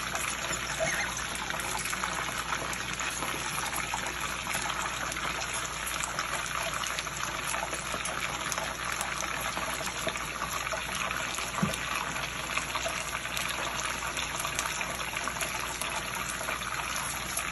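Pot of kidney beans in seasoned coconut milk boiling steadily, a continuous watery bubbling with a few faint ticks.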